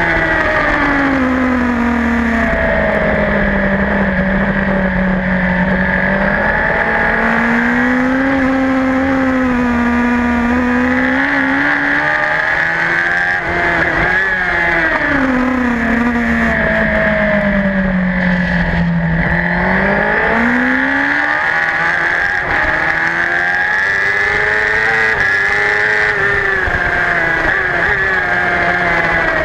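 Racing superbike engine at full race pace, heard from a camera mounted on the bike itself. Its pitch falls and climbs several times through the lap, with a sharp climb about twenty seconds in.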